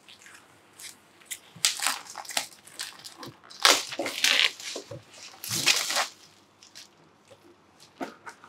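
Packaging being handled and opened: a cardboard game box and its contents' wrapping rustling and crinkling in several short bursts, loudest about four seconds in.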